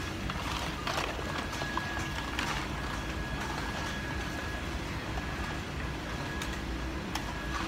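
Wet-market ambience: a steady hiss and hum, with a few short knocks and clatters from the stalls.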